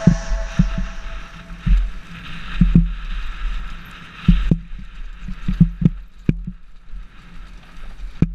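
Downhill mountain bike running fast over a dry, rough dirt trail: irregular knocks and clatter as the tyres and frame hit bumps and rocks, over a steady low rumble of wind on the helmet camera's microphone.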